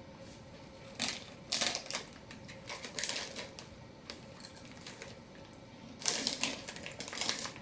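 Walkers Flamin' Hot Monster Munch crisps crunching as they are chewed, in several short bursts: a couple about a second in, one near the middle and a longer run near the end.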